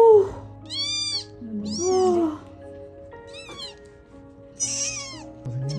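A newborn kitten mewing over and over, about five short, high cries, while it is held and its eyes are wiped.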